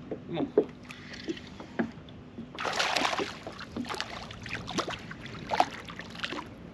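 A hooked white bass splashing at the surface as it is reeled up beside a kayak. There is a louder rush of splashing about two and a half seconds in, more sharp splashes toward the end, and small knocks and taps throughout.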